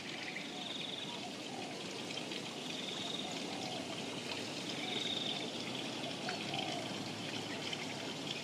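Steady patter and trickle of rainwater, with a few faint high chirps over it.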